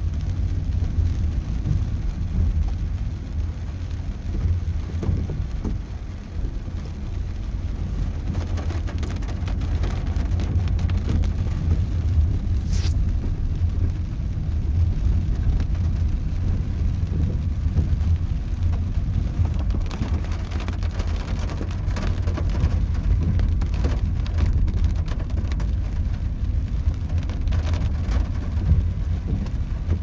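Inside a car driving through heavy rain: a steady low rumble of engine and tyre noise, with rain hitting the roof and windshield as an even hiss and scattered sharp ticks.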